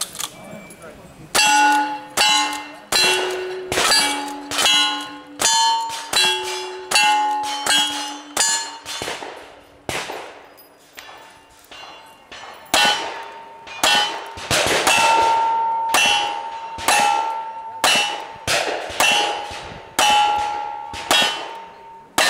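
A rapid string of about two dozen pistol shots. Each shot is answered by the ringing clang of a struck steel target, and the plates ring at different pitches. There is a brief lull near the middle.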